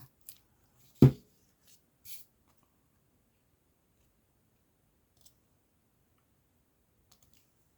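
A single sharp knock about a second in, then a few faint taps and rustles of paper and craft materials being handled on a tabletop; otherwise nearly quiet.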